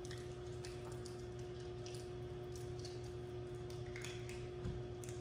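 Quiet room tone with a steady electrical-sounding hum, scattered faint clicks and rustles, and a soft thump near the end.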